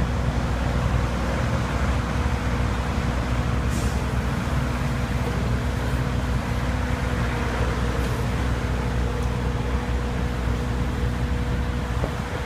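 Mini excavator's engine running steadily, a constant drone with an even, unchanging pitch.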